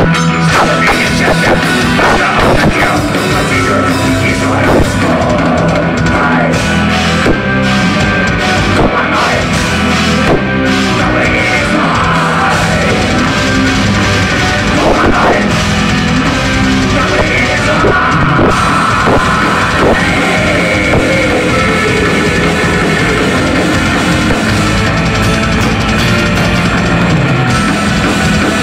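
Live heavy metal band playing loud: electric guitars over a pounding drum kit, without a break.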